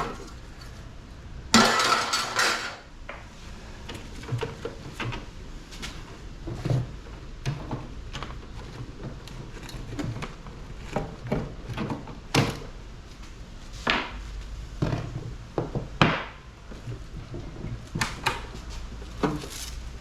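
Metal parts of an air conditioner unit clanking and clinking as it is taken apart by hand, with a loud ringing clatter about a second and a half in, then scattered knocks and clicks.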